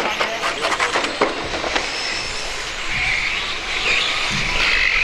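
Radio-controlled touring cars racing: a high motor whine that rises and falls with the throttle, with a flurry of sharp clicks and knocks in the first two seconds.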